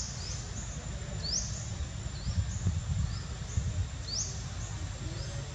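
Short rising high-pitched chirps repeating a few times a second over a thin steady high tone, with a low rumble that swells in the middle.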